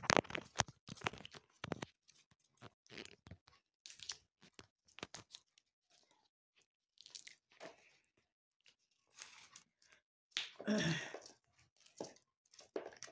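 Fresh green broad bean (fava) pods being snapped and split open by hand to shell the beans: irregular crisp cracks and tearing, with a louder cluster about three-quarters of the way through.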